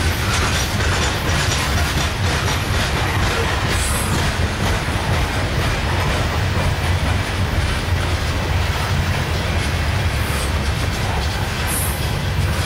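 Loaded-length freight train of steel coal hoppers and gondolas rolling past: a steady rumble of wheels on rail with clickety-clack over the joints, and twice a brief high wheel squeal, about four seconds in and near the end.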